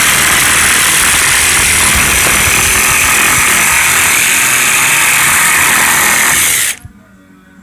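Power drill driving a Malco slate-cutter attachment, nibbling through a roofing slate with a loud, steady chattering grind and a thin high whine; it stops suddenly about seven seconds in.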